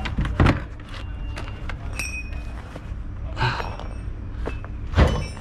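Plastic under-trailer strap box shut with a thump about half a second in, then rolled ratchet straps handled and picked up, a metal hook giving a short clink. Another thump comes near the end, over a steady low hum.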